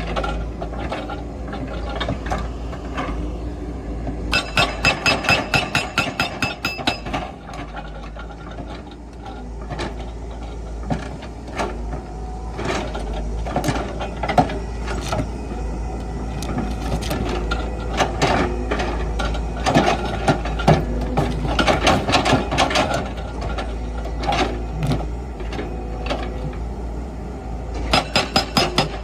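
Excavator working on rock: a steady low engine rumble under scattered knocks and clatter of stone, with two spells of rapid hammering at about five blows a second, a few seconds in and again near the end.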